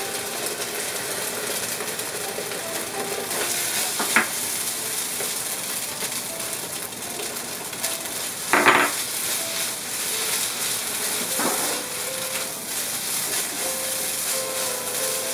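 Shredded cabbage, carrots and rice vermicelli sizzling in a hot nonstick frying pan while being stir-fried with a silicone spatula. A few knocks of the spatula against the pan stand out, the loudest a little past halfway.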